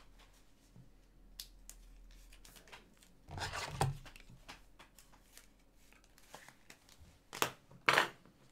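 Trading cards and their plastic packaging being handled: soft rustling and clicks, a longer crinkling scrape about three seconds in, and two short sharp swishes near the end.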